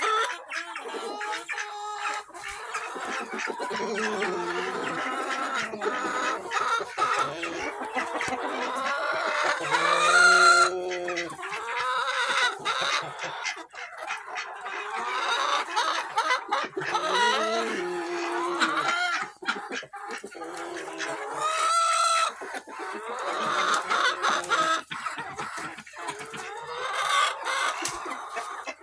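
A mixed barnyard flock of chickens clucking and calling continually, many birds overlapping, with louder drawn-out calls about ten seconds in and again near the twenty-two-second mark.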